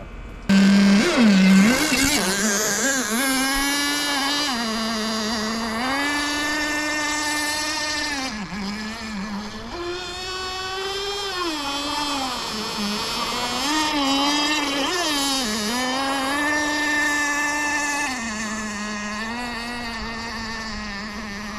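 Nitro RC boat's GT32 marine two-stroke glow engine running at high revs, starting abruptly about half a second in, its pitch rising and falling again and again.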